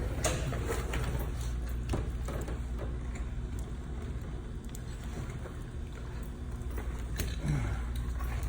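Utility knife scraping and cutting at the insulation of a heavy electrical cable: a few short scrapes and clicks over a steady low hum.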